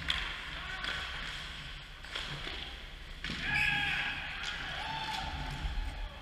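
Ice hockey play at the net: skates scraping the ice and a run of sharp knocks from sticks, puck and bodies hitting the goal during a scramble in the crease.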